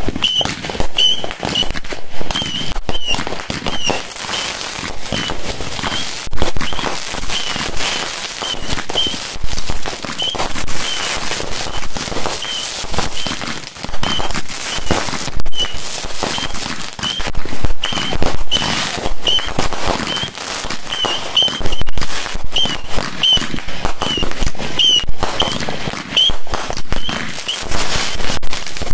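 Backyard consumer aerial fireworks going off in rapid, overlapping succession: dense bangs and crackling with no pause. Short high chirps recur throughout.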